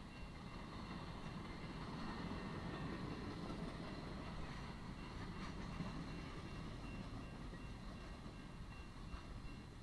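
Freight train rolling past: a steady rumble of wheels on the rails, swelling a little in the middle, with a faint steady high tone above it.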